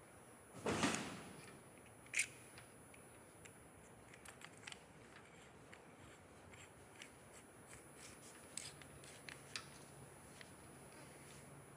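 Small plasma-torch consumables and torch-head parts being handled and fitted: scattered light clicks and clinks, with a louder short clatter about a second in and a sharp click about two seconds in.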